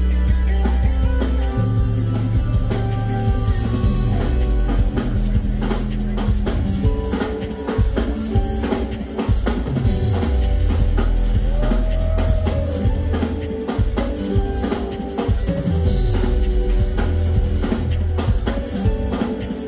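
Live band playing amplified music: a drum kit keeping a steady beat under deep sustained bass notes and held keyboard tones.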